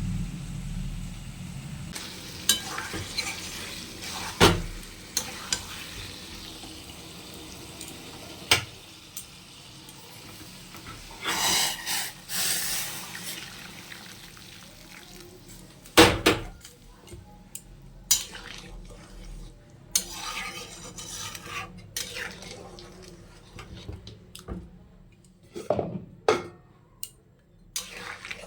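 Metal utensils clinking and knocking against cooking pots and pans in a stream of separate sharp strikes, with a couple of longer scraping stretches, about eleven and twenty seconds in, as food is stirred in a pan.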